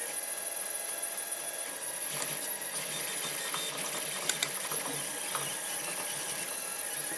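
Protomaker Black Sprint FDM 3D printer running a print, its stepper motors sounding as a steady set of whining tones. A couple of sharper clicks come about four seconds in.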